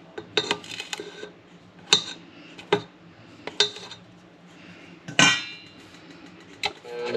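A spatula knocking and scraping against a stainless steel stand-mixer bowl and its metal flat beater: a handful of separate clanks about a second apart, one with a short ring about five seconds in. The stand mixer starts running right at the end.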